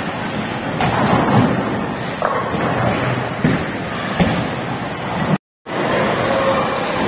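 Bowling alley din: bowling balls rumbling down the lanes and pins crashing, with several sharp pin clatters. The sound cuts out completely for a moment near the end.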